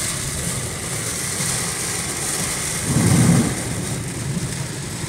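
Steady rain and wet-road noise heard inside a moving Toyota RAV4, with its engine running underneath. A brief louder low rumble comes about three seconds in.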